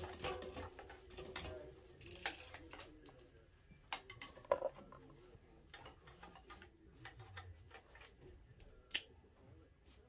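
Quiet metallic ticking and clicking from a mountain bike's rear wheel and drivetrain in a repair stand. A quick run of ticks comes in the first few seconds as the rear hub spins, then scattered single clicks follow, the sharpest about four and a half seconds in and again near nine seconds.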